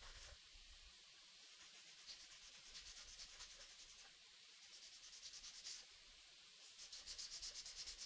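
A knife blade stroked quickly back and forth on a whetstone, a faint, rhythmic scraping of about four strokes a second. It comes in three short runs with brief pauses between them.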